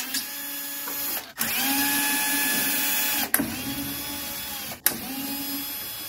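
Cordless power driver backing out small retaining screws: the motor whines in four trigger pulls of one to two seconds each, rising in pitch as it spins up each time, with a short click between pulls.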